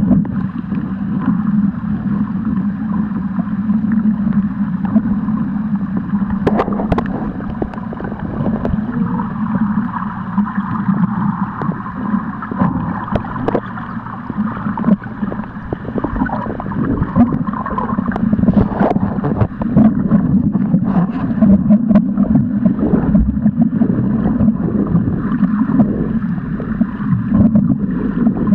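Underwater sound picked up by the camera: a steady low hum under swirling water noise, with many scattered small clicks.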